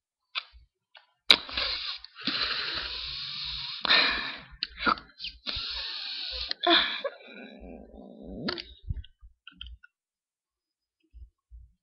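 Mouth and breath noises right at a webcam microphone: a sharp click about a second in, then several seconds of loud hissing breath in on-and-off bursts. A softer, lower vocal sound follows shortly before the end.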